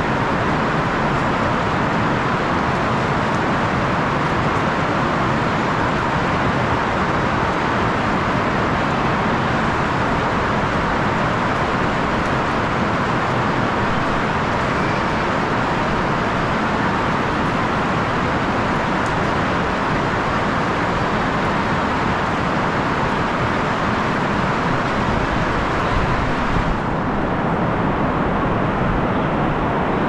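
Heavy rain falling in a steady, even hiss. Near the end the higher part of the hiss drops away suddenly, leaving a duller sound.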